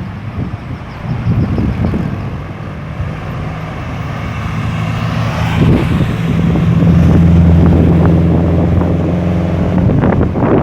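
Road traffic passing a busy roundabout, with one vehicle's engine drone building through the middle and loudest in the second half, then fading near the end.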